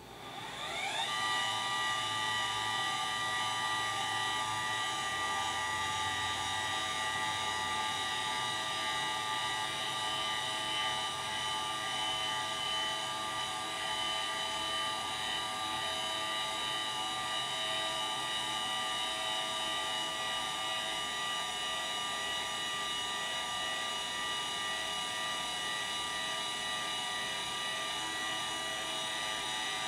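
Celestron CGX equatorial mount's drive motors slewing at full speed: a whine that rises in pitch as the motors spin up about a second in, then a steady high-pitched whine with several tones.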